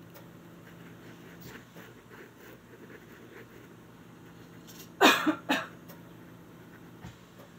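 A person coughs three times in quick succession about five seconds in, over faint scratching of a pen on sketchbook paper.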